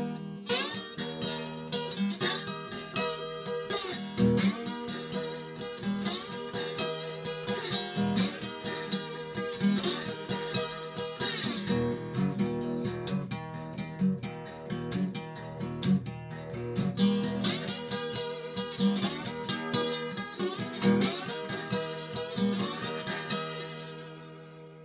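Brunswick acoustic guitar, a large-bodied 12-string converted to six strings, played with no effects: a passage of strummed and picked chords that ring on between strokes, dying away near the end.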